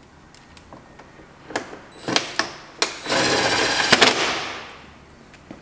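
Cordless impact driver driving T30 Torx screws into the bottom of a plastic fender flare. A couple of short blips on the trigger come first, then about a second of rapid hammering near the middle that trails off.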